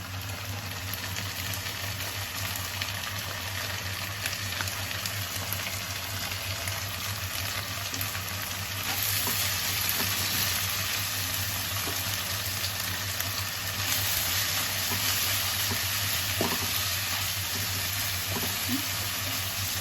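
Onions with ginger and garlic paste frying in hot oil in a pan, a steady sizzle that grows louder about nine seconds in and again a few seconds later, while the mixture is stirred.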